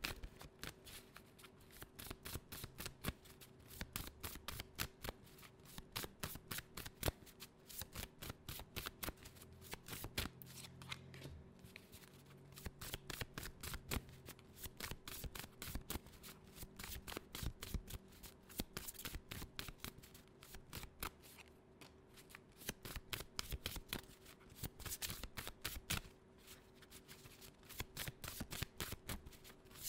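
A deck of cards being shuffled by hand: a rapid, continuous patter of card edges riffling and slapping together, with a few brief lulls, over a faint steady hum.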